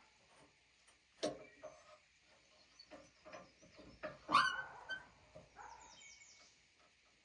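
A few sharp knocks, the loudest a little past four seconds in, as a log is handled on a sawmill bed, with birds chirping now and then.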